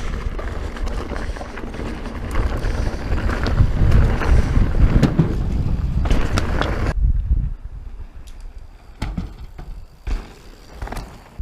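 Mountain bike rolling and rattling down a rocky dirt trail feature, with heavy wind buffeting the microphone as a dense low rumble and scattered clicks and knocks. About seven seconds in the rumble cuts off suddenly, leaving a quieter stretch with a few short knocks and gusts.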